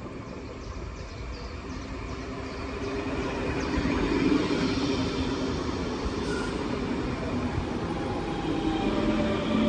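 A Class 424/425/426-family German electric multiple unit running on the rails. Its rumble grows louder from about three seconds in, and near the end steady tones set in over the noise.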